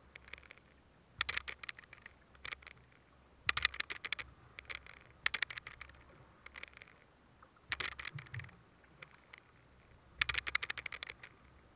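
Irregular bursts of rapid crackling clicks, about one burst every second or two, over a faint steady background.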